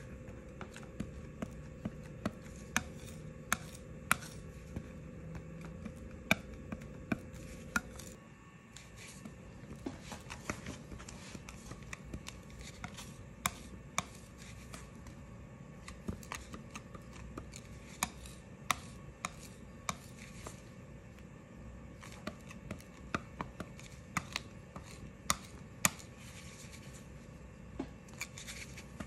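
Metal ink knife working thick letterpress ink on a hard slab: irregular sharp clicks and taps as the blade scrapes, folds and spreads the ink. A low steady hum sits underneath and stops about eight seconds in.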